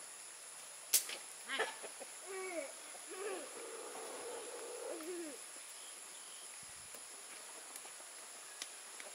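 A rooster crowing once: a few short rising notes run into a long held note that bends down at the end, about four seconds in all.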